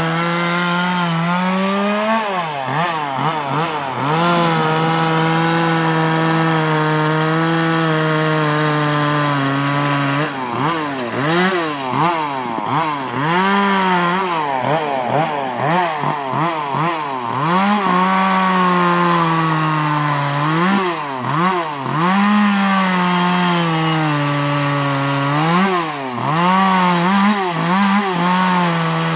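Two-stroke petrol chainsaw carving into wood, the engine held at high revs for several seconds at a time between stretches of quick rise-and-fall revving as the throttle is worked.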